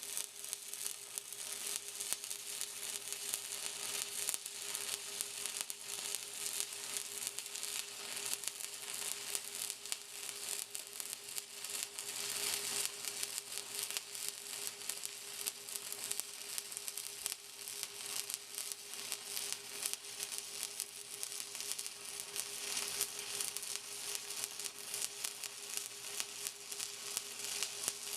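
Stick-welding arc crackling and sizzling steadily as a 1/8-inch Vulcan 7018 electrode burns, with a faint steady hum underneath.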